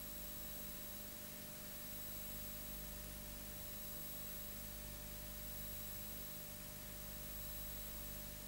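Steady hiss with faint constant electrical hum and whine tones, and no other sound: the background noise of an old silent cine film transfer.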